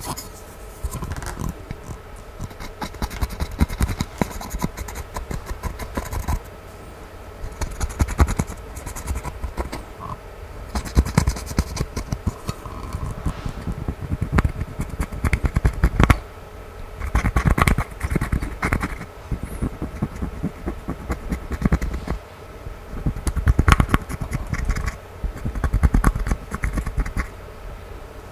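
Pressed eyeshadow being scraped and crumbled out of a plastic palette's pans with a plastic stick: dense, crunchy scratching in spurts of a few seconds with short pauses between.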